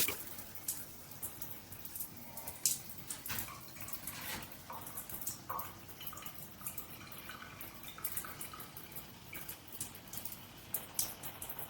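Irregular drips falling from a square stainless steel rainfall shower head once the water flow has stopped.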